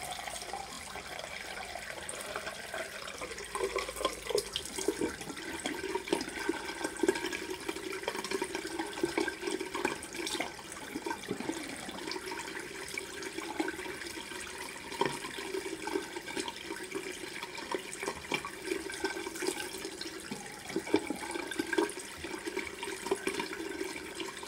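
Bathroom tap running into a sink, with water splashing as hands rinse a face mask off.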